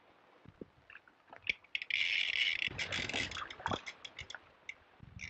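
Water splashing in a river: it starts about a second and a half in, is busiest for the next two seconds, then breaks up into scattered splashes.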